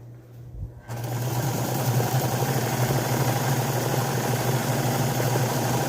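Electric sewing machine starting about a second in and then running steadily at speed, stitching quilt pieces with a fast, even mechanical chatter over a motor hum.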